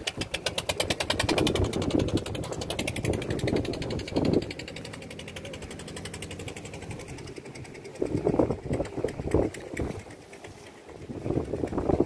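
Fishing boat's engine running with a rapid, even knock, clearest in the first few seconds, with louder irregular bursts of noise later on.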